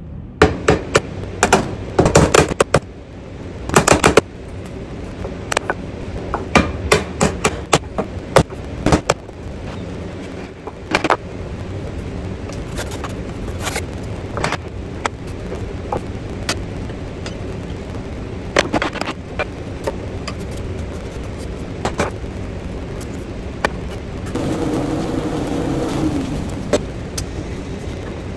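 Sharp knocks and taps of hand-tool work on a wooden workpiece, with a wooden mallet striking a chisel, in irregular clusters over a steady low hum. Near the end the knocks give way to a steadier pitched whirring sound for about three seconds.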